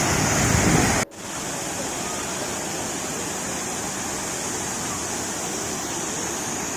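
Waterfall rushing: a steady, even rush of falling water that drops suddenly to a quieter level about a second in and then holds steady.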